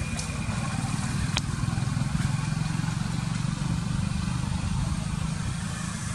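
An engine running steadily at idle, a low constant hum with an even hiss over it. A single sharp click comes about a second and a half in.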